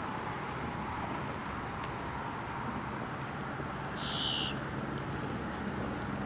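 Steady low hum of an idling vehicle engine. About four seconds in, one short, high-pitched bird call sounds over it.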